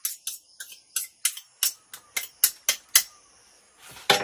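Knife cutting through a plastic bag: quick sharp crackling strokes, about four or five a second, that stop about three seconds in, followed by a louder crackle at the very end.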